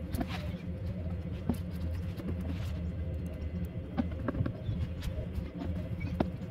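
Scattered light clicks and knocks of a plastic A/C evaporator housing being handled and pulled apart, over a steady low hum.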